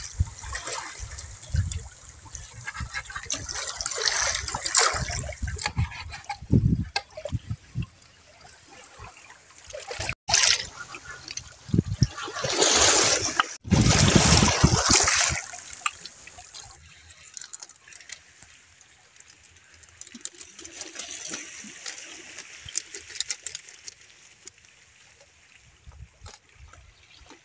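Seawater splashing and trickling around shoreline rocks, in uneven surges, with scattered knocks of a knife on a wooden cutting board in the first few seconds.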